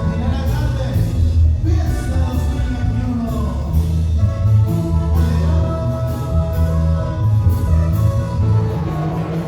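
Live band music with a steady beat and a heavy bass line.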